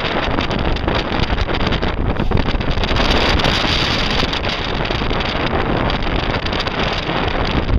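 Loud wind buffeting the microphone over the rush of rough sea, with a motorboat running underneath.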